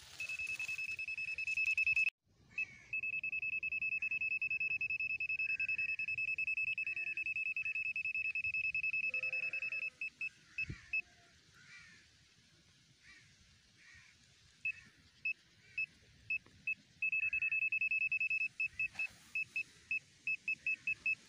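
ANENG SZ08 multimeter's non-contact voltage (NCV) buzzer sounding a steady high beep as the meter is swept along a live cable, with a short gap about two seconds in. About ten seconds in it breaks into separate beeps and mostly falls silent, then sounds steady again and ends as a run of fast beeps; the beeping fades where the voltage field stops, which marks the break in the conductor inside the insulation.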